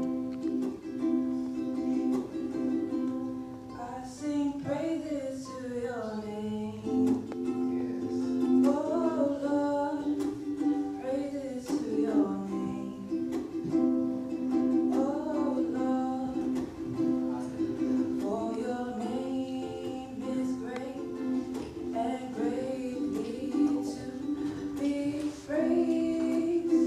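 Ukulele strummed in steady chords, with a voice singing a melody over it from about four seconds in.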